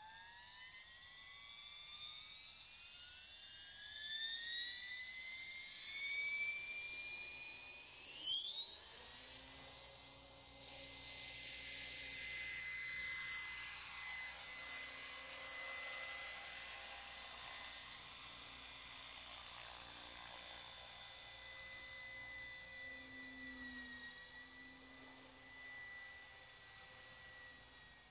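Align T-Rex 600 RC helicopter spooling up: a high whine that rises steadily in pitch and loudness for about eight seconds, then holds at flying head speed. The level rises and falls as the helicopter lifts off and flies about.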